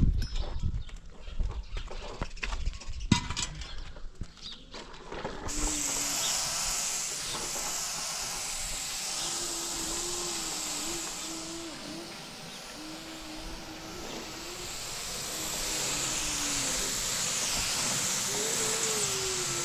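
Compressed-air paint spray gun hissing steadily while spraying white paint. It starts about five seconds in, after some low rumbling and a few knocks.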